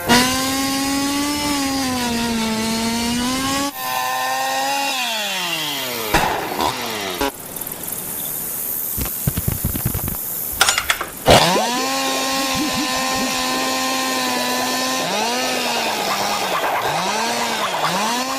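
Motor-like buzz of cartoon insects racing in flight, a steady droning pitch that drops in a long glide about four seconds in as one flies past. A noisier middle stretch with sharp knocks follows, then the buzz comes back and swoops down and up in quick arcs near the end.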